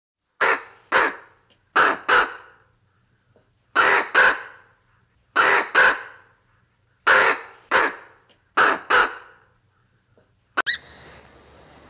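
Crow cawing: six pairs of harsh caws, each pair about a second and a half after the last. Near the end there is a sudden click, then a low steady background.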